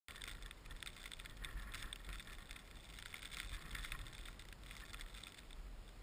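Gusty storm wind buffeting the microphone as a low rumble, with a dense crackling rustle over it. The gust eases after about five and a half seconds.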